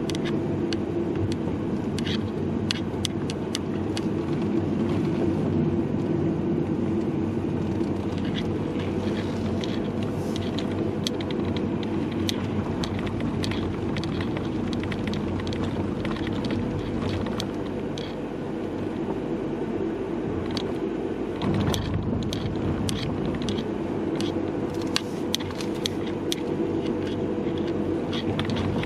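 Car's road and engine noise heard inside the cabin while driving, with many light clicks and taps from the camera's hanging strap knocking as the car moves. About three-quarters of the way through there is a short low thump.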